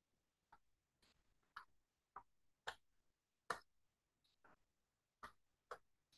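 Faint keystrokes on a computer keyboard while typing: about ten separate clicks at an uneven pace of roughly two a second.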